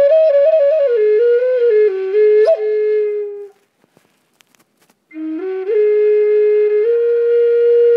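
Solo flute playing a slow melody that steps down over the first few seconds, stops for about a second and a half, then comes back low and rises to a long held note.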